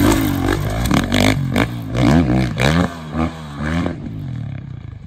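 Dirt bike engine revving up and down in quick throttle blips as it is ridden over jumps, quieter in the last second.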